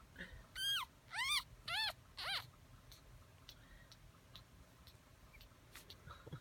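Newborn puppy squealing four times in quick succession. Each is a short, high cry that rises and then falls in pitch.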